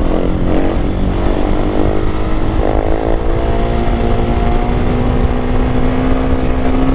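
Motorcycle engine running at a nearly steady speed while riding, its note climbing slightly, with heavy wind rush on the microphone.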